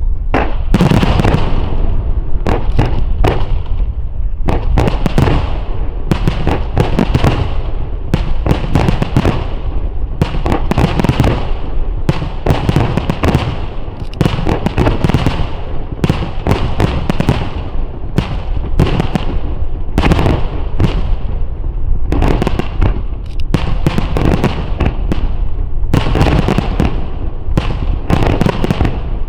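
Starmine firework barrage: aerial shells launched and bursting in rapid succession, several booms and cracks a second with no break, their echoes running together.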